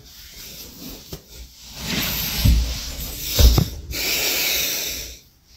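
Rustling and rubbing noise with two low thuds, then a steady hiss for about a second near the end.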